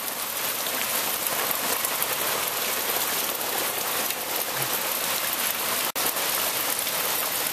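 Steady downpour of rain falling on surfaces, an even dense hiss, broken by a very brief dropout about six seconds in.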